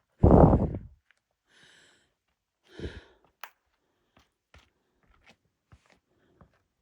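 A heavy exhaled breath or sigh close to the microphone, loud and gusty, then a second, softer one about three seconds in. After that come faint, short ticks, roughly two a second.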